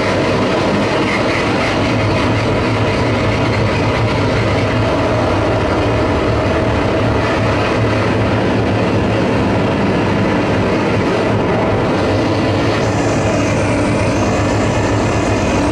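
Live noise-music performance: a loud, unbroken wall of harsh electronic noise with a steady low hum underneath. Near the end the high hiss changes character.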